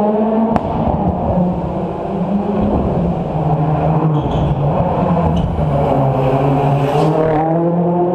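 Rally car engines on a closed stage: the first car's engine fades away early with a sharp crack about half a second in, then the next rally car's engine grows louder as it approaches, stepping up and down in pitch through gear changes, and is loudest as it passes close by near the end.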